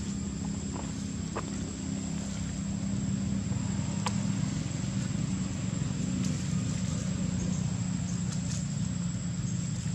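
Steady low hum of an engine running, with a thin steady high whine above it and a few faint clicks.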